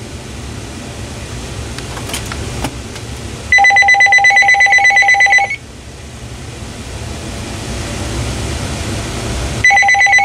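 Uniden DXAI388-2 900 MHz cordless phone ringing on an incoming call: two rings, each about two seconds of a rapid electronic warble on two tones, with the second ring starting near the end.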